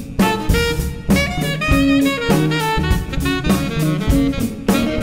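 Jazz septet playing: horn lines over drum kit and bass, with a steady beat.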